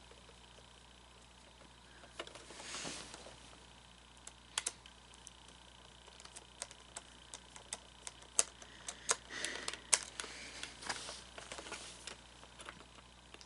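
Scattered small clicks and taps of hands handling an animatronic figure's plastic parts and screws during reassembly, with short rustles about three seconds in and again near ten seconds.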